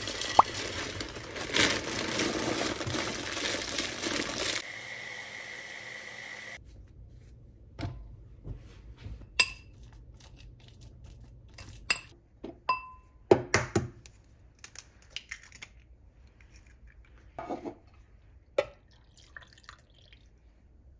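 Loud rustling pour for the first few seconds as dry rolled oats go from a bag into a glass jar, then steadier noise that cuts off suddenly. After that come scattered sharp clinks and taps of a utensil against a glass mixing bowl while banana is mashed, with a quick run of clinks about halfway through.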